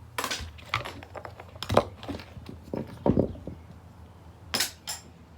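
Small objects being handled and set down: a string of knocks and clatters, the loudest about two seconds in.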